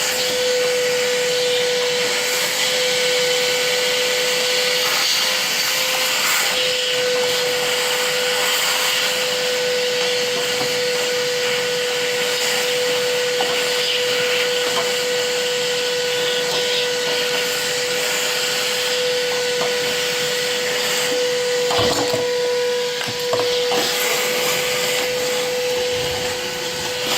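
Vacuum running steadily with a constant whine, sucking standing water out of a washer that won't drain. A few short knocks come a little before the end.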